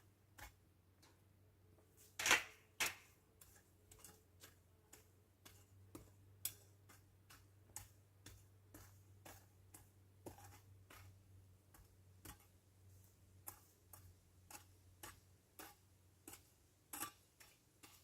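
Garden shears snipping weeds, a long run of sharp, irregular clicks about one to two a second, with one louder snip about two seconds in.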